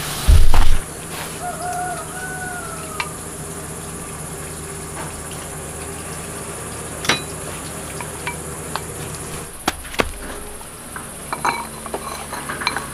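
Insects buzzing steadily at a high pitch, with a few sharp clinks of dishes and utensils and more clatter near the end. A loud low thump comes about half a second in.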